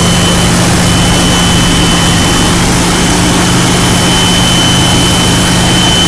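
2001 Jeep Cherokee engine running, with a loud, steady, high-pitched whistle on one unchanging pitch, almost like a tea kettle, coming from the right side of the engine. Cleaning the idle air control valve has not cured it.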